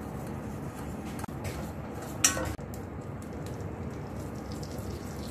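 Melted butter sizzling softly in a stainless steel pan while a wooden spoon stirs it, with one sharp metallic clink about two seconds in.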